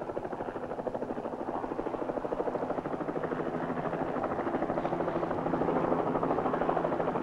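Helicopter rotor chop: a steady, rapid beat of the blades that swells gently and eases a little near the end.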